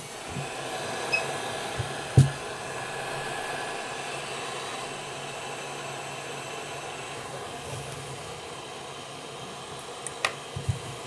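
Hot-air rework station blowing with a steady hiss. A sharp click about two seconds in, and a few smaller clicks near the end.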